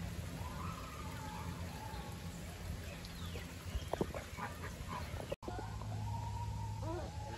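Faint, wavering honking calls from a flock of flamingos over a steady outdoor background, with a few sharp clicks about four seconds in.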